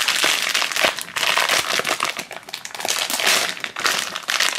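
Crinkly plastic wrapper being crumpled and pulled open by hand: a dense, irregular run of crackles as it is peeled off a small plush toy.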